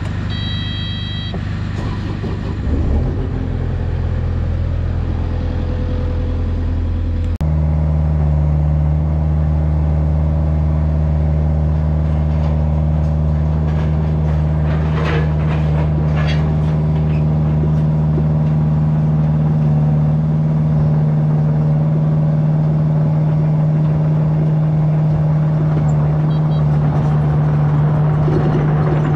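Mini excavator's diesel engine running. A short electronic beep sounds under a second in, and about seven seconds in the engine steps up to a higher, steady speed as the throttle is raised.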